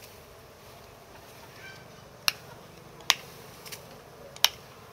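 Scissors snipping at a wild dwarf honeybee comb hung on a stick. There are three sharp snips and a fainter one, about a second apart, starting about two seconds in.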